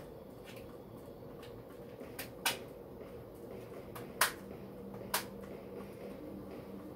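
A handful of short, sharp clicks and knocks from things being handled and set down while tidying, the loudest two about a third and two thirds of the way through, over a steady low hum.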